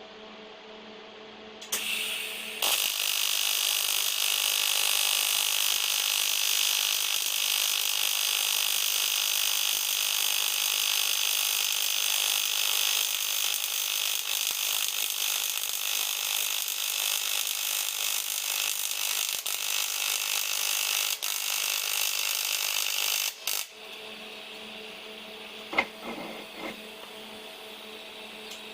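Welding on an aluminium part: a steady, loud hissing arc starts about two seconds in and cuts off suddenly about four-fifths of the way through, leaving a quieter steady hum with a couple of brief clicks near the end.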